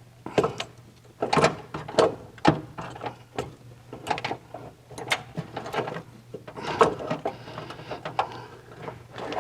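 Carburetor being wiggled and worked loose off the intake manifold of a VW air-cooled engine: irregular metallic clicks and knocks, one or two a second.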